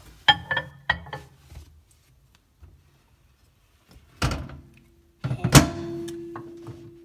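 Microwave oven with a mechanical timer dial: a few sharp clicks near the start, the door shut with a thunk about four seconds in, then the oven starts up with a loud click and runs with a steady hum.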